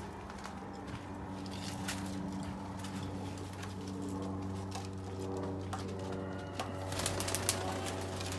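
Fancy pigeons, pouters among them, cooing: a steady low cooing drone that runs on without a break. A few sharp taps come through a little before the end.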